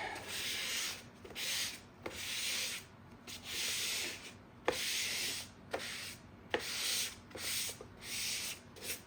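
Rubbing strokes across a laptop's case as it is wiped clean of dirt, about one back-and-forth stroke a second with a few light clicks between them.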